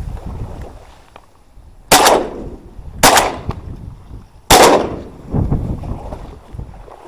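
Shotgun fired three times: the first shot about two seconds in, the second about a second later, and the third about a second and a half after that. Each shot is a sharp, loud bang that dies away quickly.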